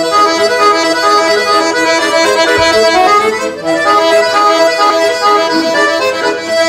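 Button accordion (bayan) playing a lively melody over held chords, the notes changing quickly with the bellows sustaining them.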